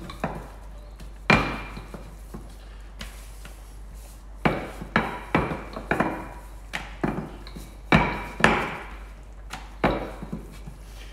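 Wooden rolling pin rolling out naan dough on a stainless-steel worktop: about ten sharp knocks at uneven intervals as the pin strikes and runs over the steel, each with a short metallic ring.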